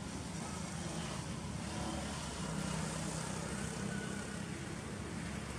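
Steady low drone of an engine, with a constant hum that swells slightly in the middle.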